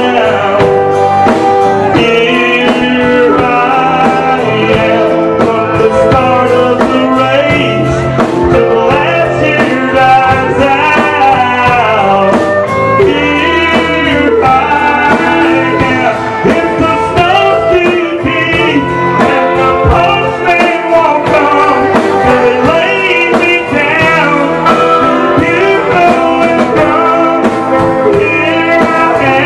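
Live band playing a country-blues song: fiddle, electric guitar and acoustic guitar over drums, loud and continuous.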